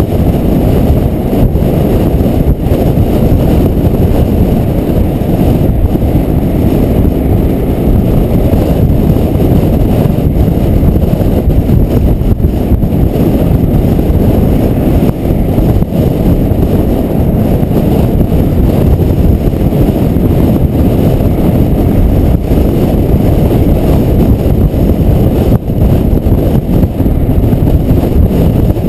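Steady rush of wind buffeting the camera microphone on a moving motorcycle, with the motorcycle's engine and road noise blended into a low, even rumble.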